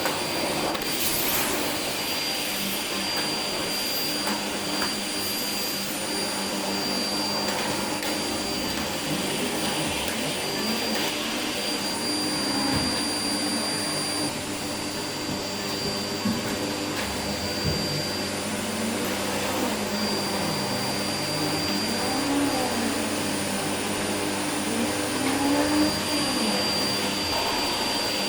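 Household vacuum cleaner running steadily, with a steady high whine over its rushing noise and a few light knocks as it is pushed about.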